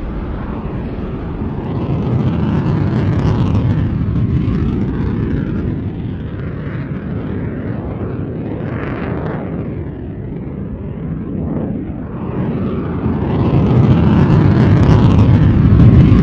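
Rocket engine exhaust rumbling, a loud continuous roar of noise that swells and fades, with slow sweeping changes, growing loudest near the end.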